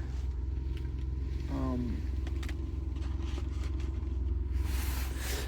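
Car engine idling with a steady low rumble, heard from inside the cabin. A short falling voice-like sound comes about a second and a half in, and a soft hiss near the end.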